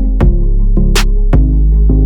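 Background electronic music with a steady bass line and regular drum-machine hits.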